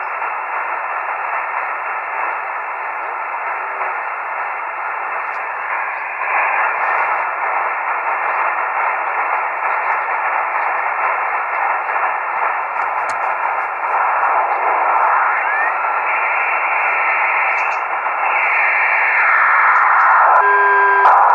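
Single-sideband receiver hiss from an amateur radio transceiver tuned across the 2 m downlink of the FunCube-1 (AO-73) satellite, with static cut off above about 3 kHz. Faint signals glide in pitch as the dial is turned, and a few steady tones come in near the end.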